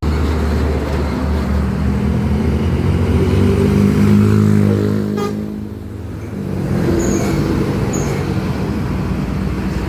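Heavy bus diesel engine running loud as it passes close by. It swells over the first four seconds with its pitch sagging, dips away about five seconds in, then a second heavy engine builds up.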